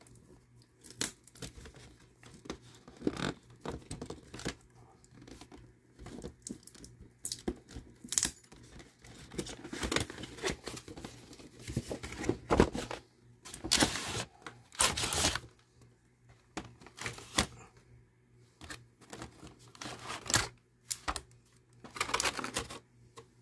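Action-figure packaging being opened by hand: irregular tearing, scraping and crinkling of the cardboard box and its clear plastic blister tray as the tray is pulled out.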